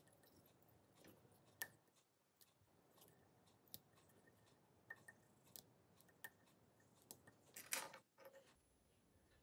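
Small fly-tying tools handled at the vise while finishing a dry fly: scattered sharp little clicks and taps, with a louder cluster of clicks and rustling a little before the end.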